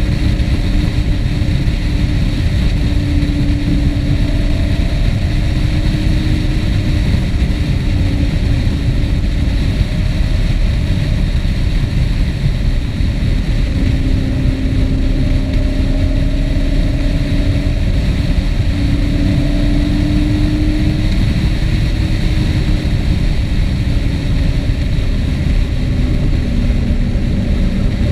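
A vehicle's engine running steadily while under way, its pitch drifting slowly up and down with the revs, over heavy rumble and wind noise.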